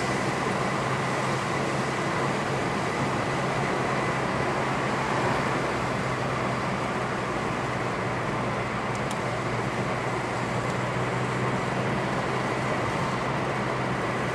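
Steady engine hum and road noise of a car being driven, heard from inside the cabin.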